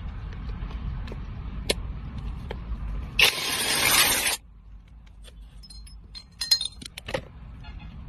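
Metal tool work on a bolt with a flexible socket extension: a low steady rumble, then a loud hissing rush lasting about a second, then a few light metallic clinks near the end.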